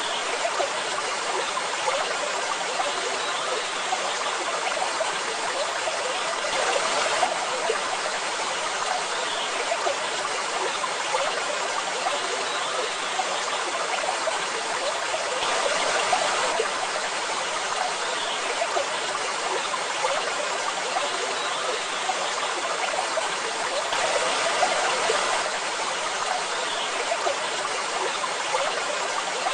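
Waterfall: falling water rushing and splashing in a steady, even hiss, swelling slightly about every nine seconds.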